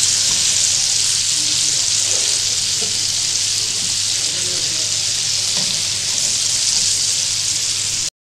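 Flour-coated chicken pieces deep-frying in hot oil, a steady sizzling hiss, while the pieces are turned with a metal spatula. The sound cuts out for a moment near the end.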